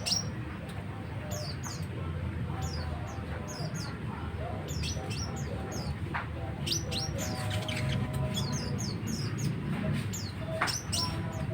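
Olive-backed sunbird singing a rapid chattering song of short, high, falling notes in quick runs, over a low steady background hum.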